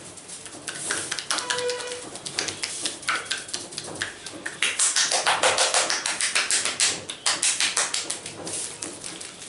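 Hands tapping and slapping rapidly on the scalp in a percussive head massage: a quick, uneven run of sharp strikes, several a second, loudest a little past the middle.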